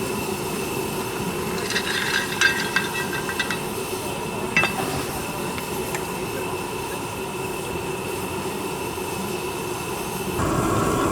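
Miniature steam engine running steadily, with a constant hum and a thin high tone, and scattered light clicks and rattles; it grows louder shortly before the end.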